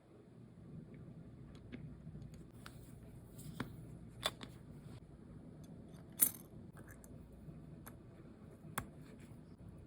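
Faint, irregular small metallic clicks and taps of watchmaker's tools handling small watch parts, a few sharper clicks among softer ticks.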